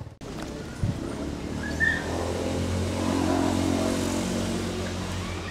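A motor vehicle engine running with a steady low hum that swells a little and then eases off. There is a single knock just under a second in and a short high squeak about two seconds in.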